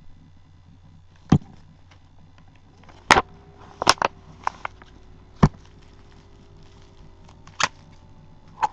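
Packaging being handled and forced open by hand: a string of sharp cracks and taps at irregular intervals, several close together around the middle.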